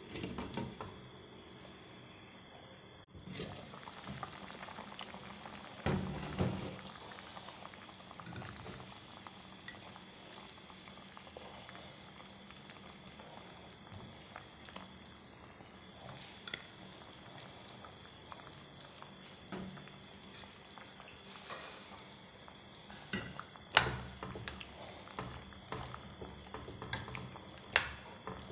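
Pot of pork-bone and vegetable soup bubbling steadily, with occasional clinks and knocks of a metal spoon against the pot as it is stirred.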